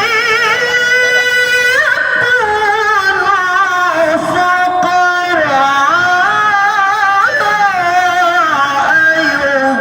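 A man's voice reciting the Quran in the melodic tilawah style, drawing out a long ornamented phrase whose pitch wavers and slides up and down. The voice is melodious but partly hoarse from a cough and cold.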